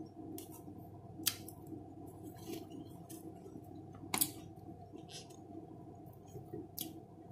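Close-up eating sounds: crunchy hot cheese curls being bitten and chewed, with short sharp crackles about once a second, the loudest a little after four seconds in, over a faint steady hum.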